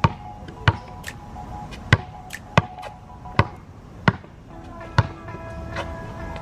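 A basketball being dribbled: about eight sharp bounces at uneven intervals. Background music with steady held tones plays underneath.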